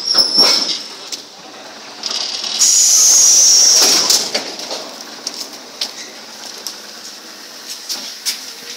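Compressed air hissing steadily from an ED4M electric commuter train for about a second and a half, a few seconds in. Scattered footsteps and knocks follow as someone climbs the steps into the carriage.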